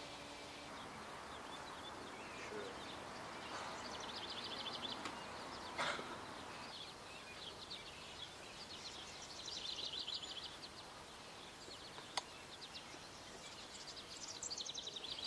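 A small bird sings short, rapid, high trills every few seconds over a faint steady background hiss. Two sharp clicks come about six and twelve seconds in.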